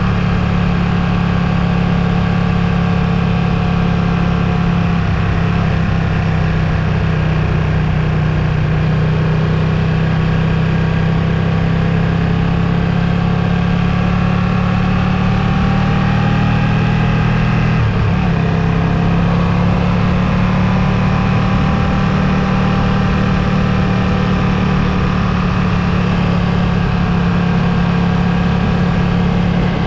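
Ducati Streetfighter V2's 955 cc V-twin running steadily under way, its pitch drifting slowly up and down, with a brief dip and break in the note a little past halfway.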